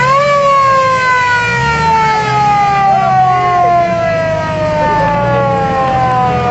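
A loud, high-pitched whine that jumps up in pitch right at the start and then slides slowly and steadily down, over a low engine rumble.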